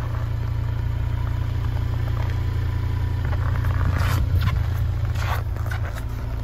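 Mercedes-Benz GLC 300's 2.0-litre turbocharged four-cylinder idling steadily at the tailpipe, just after a remote cold start at about −31°C. The low drone eases slightly near the end, and a couple of brief scrapes come about four and five seconds in.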